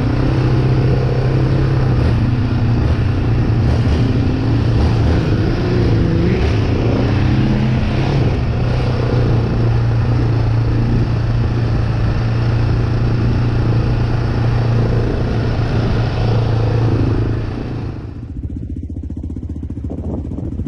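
Off-road vehicle engine running steadily with a rattle, as a quad or UTV is ridden; about three seconds before the end the engine sound drops away and gets quieter.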